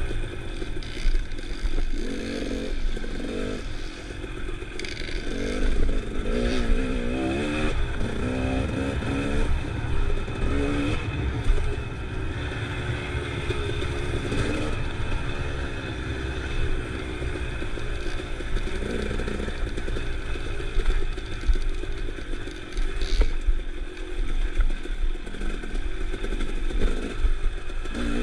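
Off-road vehicle engine running and revving up and down as it climbs a rocky dirt trail, with knocks and clatter from the vehicle jolting over stones.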